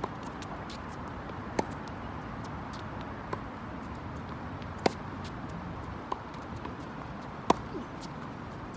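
Tennis rally on a hard court: a string of sharp pops from the ball being struck by racquets and bouncing, about every one and a half seconds, the loudest being the near player's strokes, over steady background noise.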